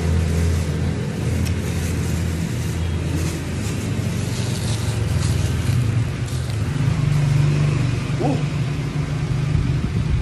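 A motor vehicle engine running close by, its low hum shifting in pitch, with crinkling of a thin plastic glove being pulled off in the first few seconds.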